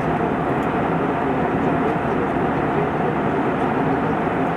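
Steady engine and airflow noise inside the cabin of an Airbus A320 in flight: a constant, unchanging hiss and drone.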